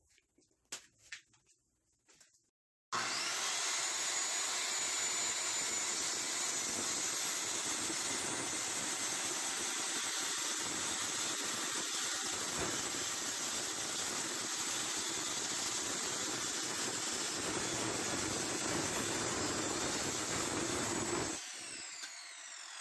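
Bosch GKS 150 1500 W circular saw with a 24-tooth blade starting suddenly about three seconds in and cutting steadily through about 45 mm of doubled plywood for some eighteen seconds without bogging down. Near the end the trigger is released and the blade winds down with a falling whine.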